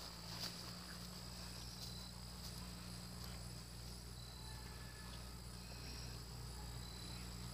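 Faint, steady chirring of crickets.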